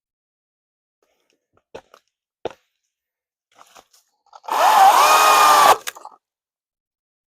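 Cordless top-handle chainsaw briefly triggered about four and a half seconds in, the motor spinning up with a rising whine that then holds steady for about a second before cutting off abruptly. A few faint clicks and one sharp knock come before it.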